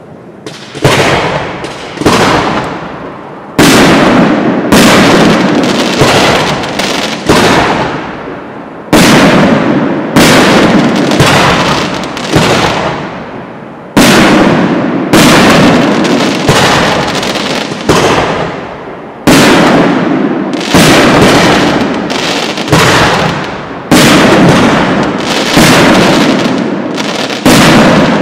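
Aerial firework shells bursting in steady succession, about one loud bang a second. Each bang trails off in a long echo before the next shell breaks.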